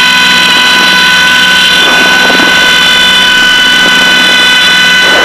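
Steady drone of a Piper Seneca's twin piston engines and propellers in flight, with a warning horn sounding continuously as a high, unwavering tone. It is the landing-gear warning horn, set off because the right throttle is pulled back too far; a little more right throttle silences it.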